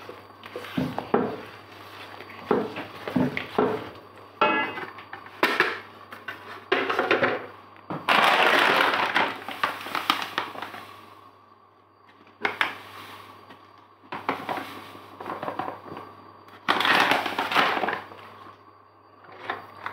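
Spatula stirring and scraping atta flour through melted ghee in a nonstick wok. It starts as a run of short strokes, then comes in several longer scraping passes of a second or two each.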